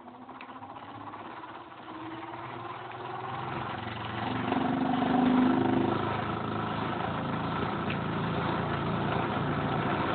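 Goodell-Pratt Model 485 hand-crank grinder spinning, its gears whirring as the crank is turned. It builds up over the first five seconds or so, then runs steadily. An old undressed grinding wheel adds a slight wobble and vibration.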